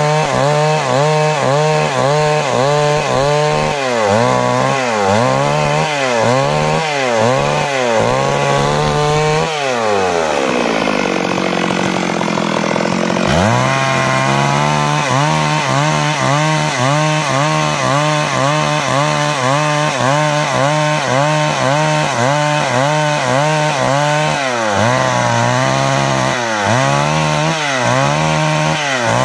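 Stihl MS 382 two-stroke chainsaw ripping lengthwise along a log, its engine note rising and falling over and over as the saw is worked through the cut. About ten seconds in the engine drops away to a low speed for a few seconds, then climbs back to full speed and keeps cutting.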